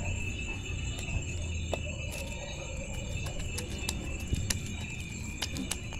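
Insects chirring steadily in high tones, with a few irregular dull knocks from a wooden pestle pounding garlic and red chillies in a wooden mortar.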